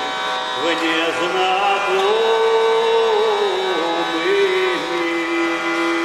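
Hurdy-gurdy playing: a steady buzzing drone under a slow melody, with a man singing along. Near the end a single note is held.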